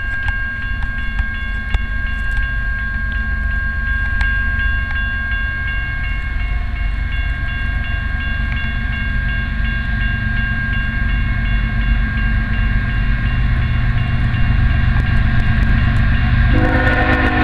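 Approaching Union Pacific freight train, led by a GE AC45CCTE locomotive: a low rumble that grows steadily louder, over a steady high ringing tone with a regular pulse. About a second before the end, the locomotive's horn starts to sound loudly.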